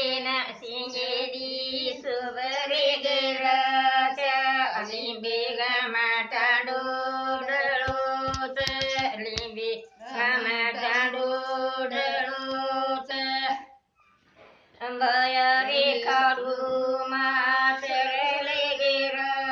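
An elderly woman singing a Banjara folk song solo, with no instruments, in long drawn-out phrases and a short break for breath a little past the middle. A few soft knocks sound around the middle.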